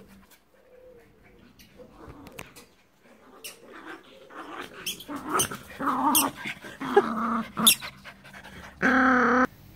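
Small dogs, a Yorkshire terrier among them, barking and growling at each other in a scuffle. The first few seconds are quiet, then comes a string of sharp barks and snarls in the second half, ending in one loud, held call near the end.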